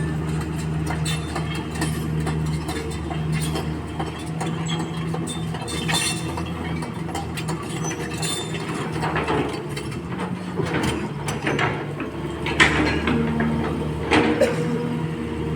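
Sany long-boom excavator working, its diesel engine running steadily under scattered metallic clicks and rattles, with two sharper knocks near the end.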